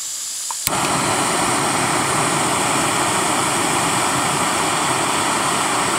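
Backpacking canister gas stove: a soft gas hiss, then a sharp click about half a second in, after which the burner lights and burns with a loud, steady rush of flame, turned up high.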